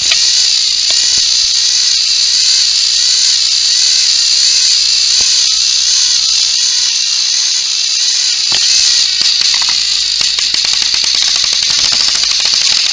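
Two battery-powered toy train engines pushing nose to nose on plastic track, their small electric motors and gears whirring steadily at a high pitch as they strain against each other.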